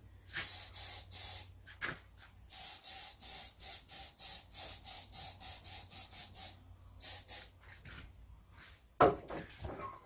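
Aerosol insecticide (F-Killer) spray can hissing in a rapid run of short bursts aimed at hornets, stopping and starting for several seconds. A single sharp knock sounds about nine seconds in.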